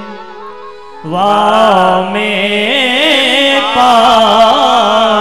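A man singing a devotional chant in a slow, ornamented melody, coming in about a second in, over a steady held instrumental drone.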